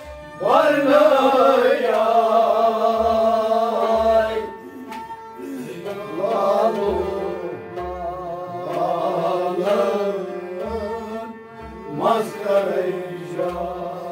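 Kashmiri Sufi devotional song: a male voice sings sliding, held lines over a harmonium's sustained chords and a plucked rabab, with a hand drum (tabla) beating low strokes underneath.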